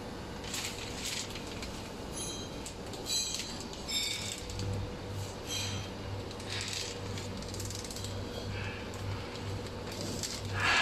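Clear plastic packaging film crinkling and rustling in short bursts as it is pulled through a packaging machine's metal rollers, with a couple of ringing metal clinks about two and three seconds in. Underneath, a steady machine hum that pulses about twice a second from about halfway.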